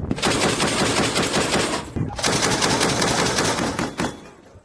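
Vehicle-mounted machine gun firing two long bursts of rapid automatic fire, with a short break of about a third of a second between them. The fire stops just before the end.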